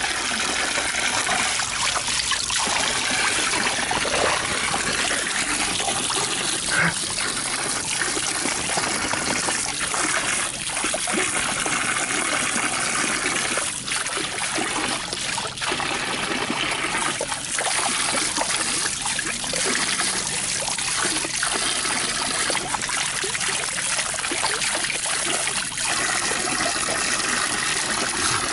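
Steady running water, a continuous trickling and splashing.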